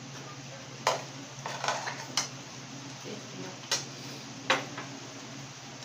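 Spoons and cutlery clinking against plates and a steel cooking pot as food is served and eaten: about five sharp, separate clinks spread over a few seconds.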